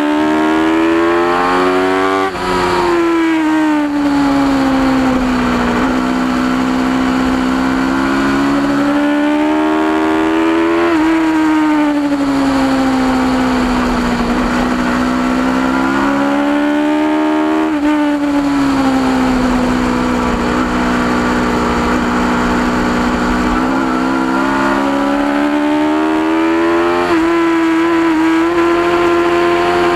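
Onboard sound of a 2010 Aprilia RSV4's V4 engine being ridden hard on a race track. Its pitch climbs under throttle and drops sharply several times at gear changes, and falls more slowly as the bike slows for corners.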